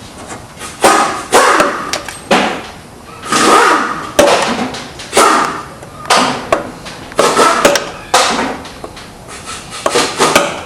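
Hammer blows on metal, about a dozen irregular strikes with short ringing tails, some in quick pairs: the old front pump seal being knocked out of a Chevy 350 automatic transmission's pump.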